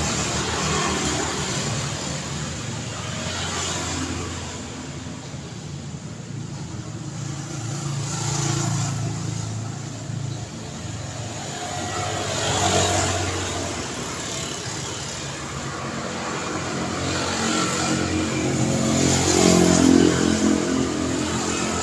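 Road traffic: engines running and vehicles passing one after another, each swelling and fading, with one pass about halfway through and the loudest near the end.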